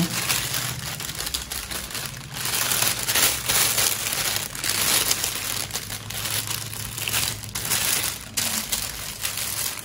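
Thin plastic bag crinkling as it is handled and pulled over a cream-filled piping bag, rustling in irregular surges.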